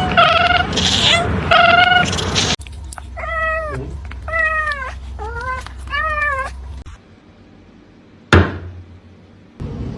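A cat meowing over and over: short, loud meows about twice a second, then four longer meows that each fall in pitch. A single sharp knock comes near the end.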